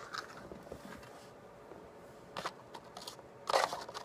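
Light clicks and taps of plastic blister packaging being handled and set down, with two louder short crinkles about two and a half and three and a half seconds in.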